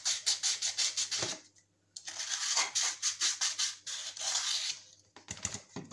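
Sandpaper rubbing over the edges of a hair dryer's fan blades in quick back-and-forth strokes, in two bursts with a short pause between, easing the blade tips so they stop rubbing against the housing.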